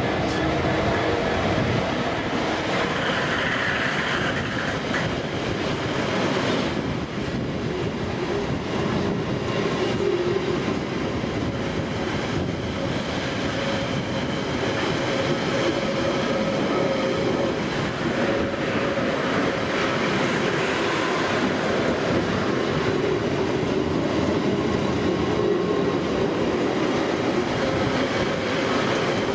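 A train running past on the rails: a steady noise of wheels on track, with a few faint steady tones.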